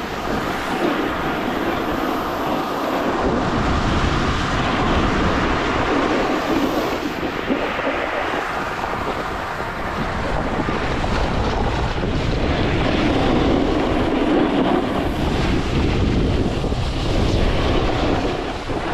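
Wind rushing over an action camera's microphone while a snowboard slides and scrapes over packed snow on a run. The noise is loud and steady, swelling and easing slowly.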